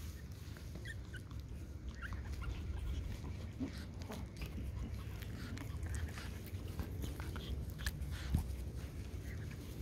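Small close-up sounds of Pomeranian dogs sniffing and nosing a young Pomeranian puppy, with scattered faint short squeaks, over a steady low rumble on the microphone.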